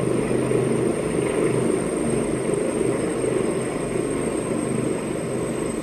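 A helicopter's rotor and engines running steadily as it hovers low and sets down on a helideck, with a thin high whine over the rotor noise.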